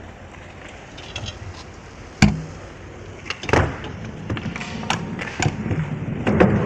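Stunt scooter clacking and knocking on concrete as it is ridden and hopped: one loud sharp clack about two seconds in, then several more knocks over the rumble of small hard wheels rolling.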